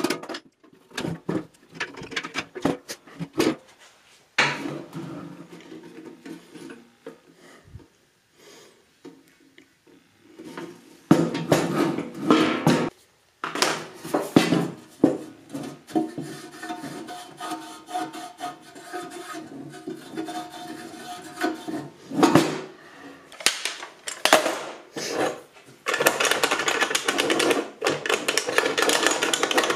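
Steel ammo can being cut and handled on a workbench: intermittent metallic knocks, taps and clanks with short quiet gaps, then a long run of rapid, dense strikes near the end.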